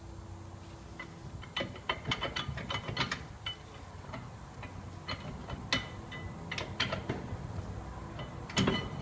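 Metal tools and brake parts clinking and tapping against each other during brake pad work: an irregular string of short, ringing metallic knocks, the loudest one near the end.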